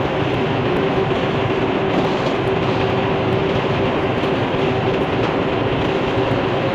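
Sawmill running, its engine and blade sawing through a red oak log with a steady, dense noise and a constant hum.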